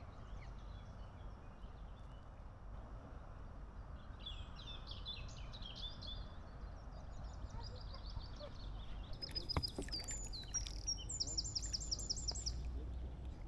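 Songbirds singing: quick chirped and trilled phrases from about four seconds in, ending in a fast run of repeated high notes, over a steady low background rumble, with one sharp click near the middle.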